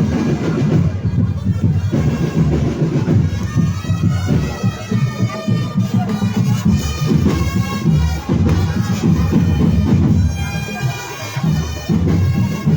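Marching drum band playing: a constant beat of drums under a reedy, sustained wind-instrument melody.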